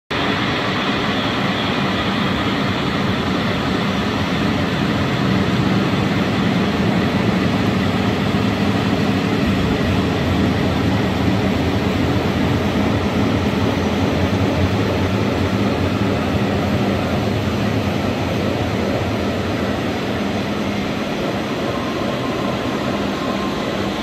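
Steady rushing rumble of a recorded waterfall, played through the sound system of a projected media-art waterfall installation, with a faint low steady hum underneath.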